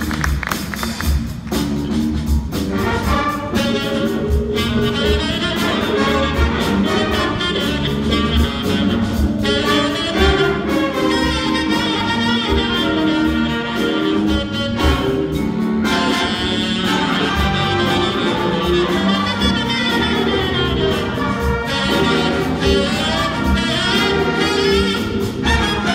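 Big band playing a funk-jazz tune: saxophones, trumpets and trombones over drums, bass and electric guitar, with a steady beat.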